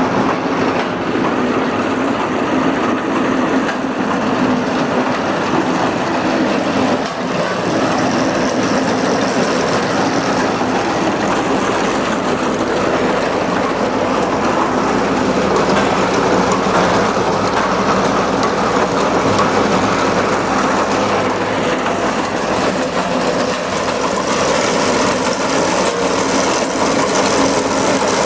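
Tractor-drawn ginseng root digger at work: a steady engine drone under dense, continuous mechanical rattling.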